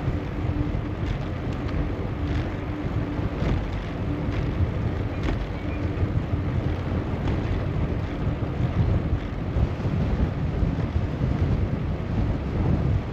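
Wind buffeting the microphone of a moving bicycle: a steady, low rumble that doesn't let up.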